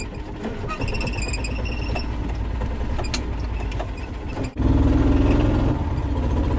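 Yamaha golf cart running as it rolls over rough ground, a steady low rumble with a few rattles. A little past halfway the sound dips for a moment, then comes back as a louder, steadier hum.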